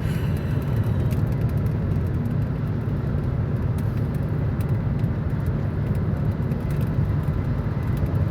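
Steady road noise inside a car's cabin at highway speed, about 85 mph: a constant low rumble of tyres and engine.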